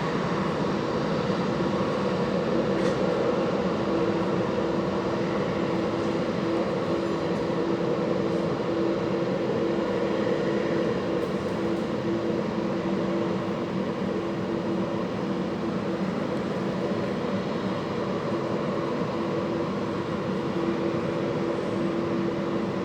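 Steady jet engine noise: a broad rumble with a constant droning hum that holds level without fading.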